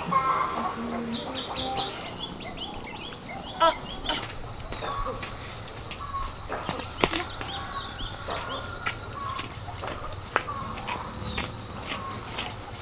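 Outdoor ambience of small birds chirping, joined about four seconds in by a high insect call in rapid, even pulses, with a few light clicks or snaps.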